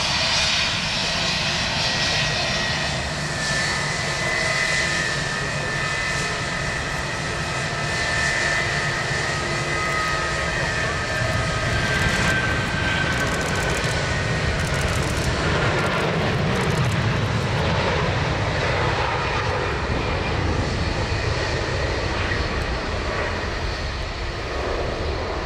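Jet airliner engines at taxi power: a steady high whine of several tones over a low rumble. The whine fades out in the first half, as an Airbus A320 taxiing close gives way to an Airbus A380 taxiing further off, and the low rumble grows stronger.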